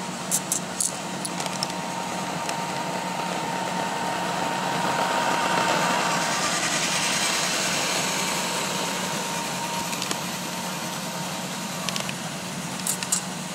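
Roomba robot vacuum running with a steady motor whirr that swells louder mid-way and then eases off, with a few light clicks.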